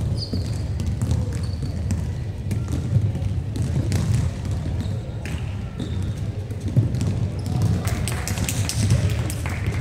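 Basketball game sounds echoing in an indoor gym: the ball bouncing on the hard court floor, with a few short high squeaks.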